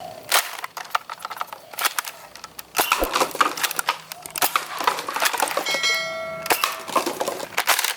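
Plastic toy blasters being handled: a run of sharp clicks, taps and knocks, with a brief ringing tone about six seconds in.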